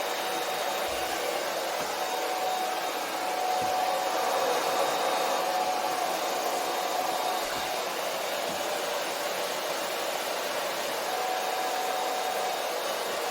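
Hand-held hair dryer blowing steadily on a freshly washed wig: a constant rush of air with a faint steady whine, swelling a little from about four to seven seconds in.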